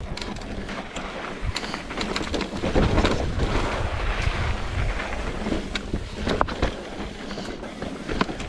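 Mountain bike being ridden over sandstone slickrock and dirt trail: tyres rumbling over the rock with scattered sharp clicks and knocks from the bike, under steady wind buffeting on the microphone. The rumble swells for a couple of seconds in the middle.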